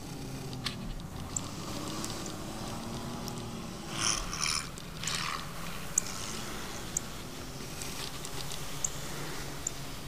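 Jeep XJ Cherokee engine heard from a distance as it pushes through deep snow, its pitch rising and falling with the throttle. A short burst of hiss comes about four seconds in, and a few sharp ticks in the second half.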